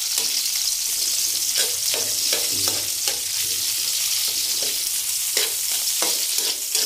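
Garlic and sliced red onion sautéing in oil in an aluminium wok: a steady sizzle, with repeated scrapes and clinks of a metal spoon stirring them.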